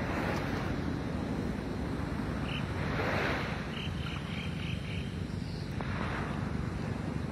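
Sea water washing and lapping close to the microphone, swelling about every three seconds, over a steady rumble of wind on the microphone.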